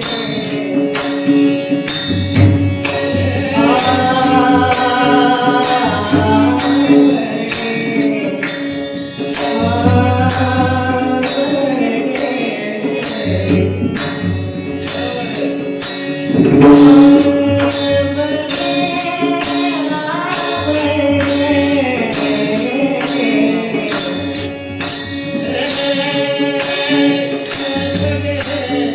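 Marathi devotional abhang singing with mridang accompaniment. Sung phrases come in bursts over a constant drone, with steady rhythmic metallic clicks and recurring low drum strokes between the lines.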